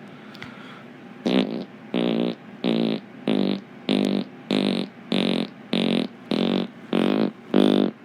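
Imitation fart noises in a steady run: about eleven short buzzy blasts at an even pace, starting about a second in.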